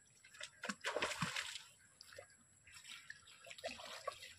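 Pond water splashing and sloshing in two spells, the louder one about a second in and a second one around three to four seconds in.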